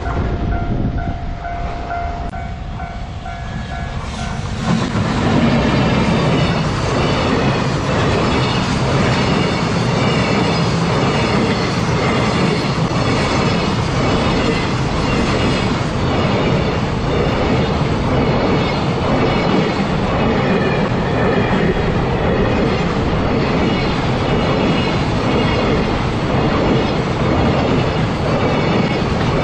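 Freight train hauled by a JR Freight EF210 electric locomotive passing a level crossing. For the first few seconds the crossing's warning bell rings on its own. About four and a half seconds in, the train arrives and its wagons run steadily over the rails with a repeating clickety-clack.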